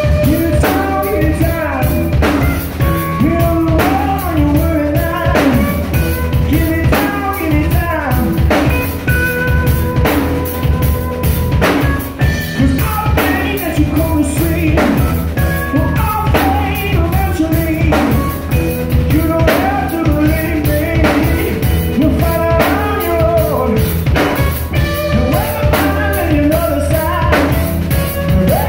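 Live rock band playing: electric guitar, bass guitar and a drum kit with a steady beat.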